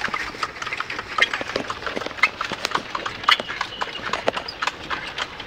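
Horse's hooves clip-clopping on a paved road as it pulls a kalesa, a horse-drawn carriage, heard from aboard: a quick, uneven run of sharp hoof strikes.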